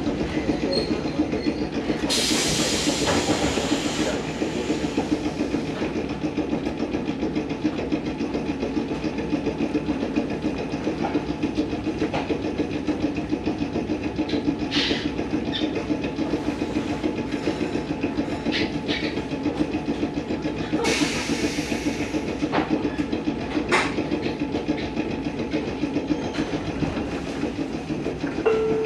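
Fukui Railway train standing still, heard from inside the car: a steady low drone with a fast pulse from its onboard equipment. Air hisses twice, about two seconds in and again about twenty-one seconds in, with a few short clicks between.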